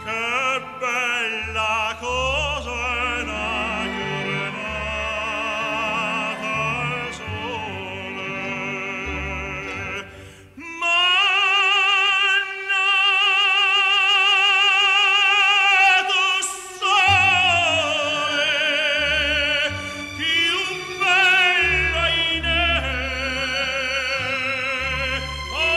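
Background music: an operatic voice sings with a wide vibrato over instrumental accompaniment. After a short break about ten seconds in, the voice holds one long note for several seconds.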